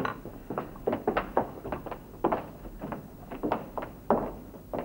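A run of irregular knocks and thumps, two or three a second, the loudest right at the start and about four seconds in.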